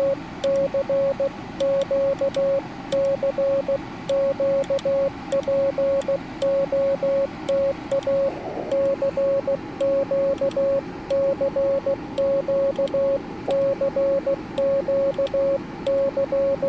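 Morse code sidetone from a Yaesu FT-891 as the operator sends CW with a paddle: a steady, mid-pitched beep keyed in dots and dashes, with light clicks and a faint hiss of band noise underneath.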